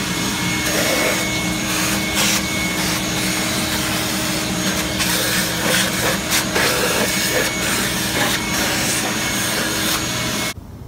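Shop vacuum running steadily, its hose sucking up grime as it is scraped off a bare engine block, with scratchy scraping strokes over the vacuum's noise. The vacuum cuts off near the end.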